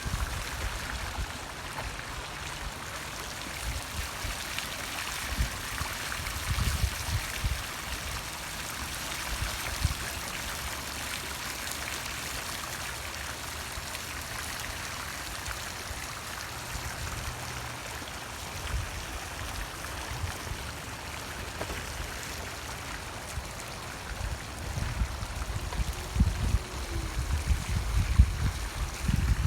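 Running water, a steady splashing trickle like a small stream or fountain, with gusts of wind buffeting the microphone that grow stronger near the end.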